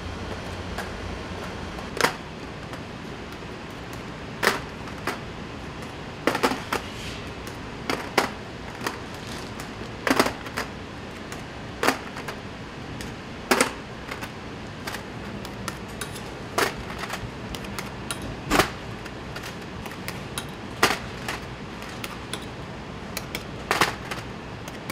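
Scattered sharp clinks and taps of metal cups and utensils being handled on a tray, irregular, about one every second or two, over a steady background hum.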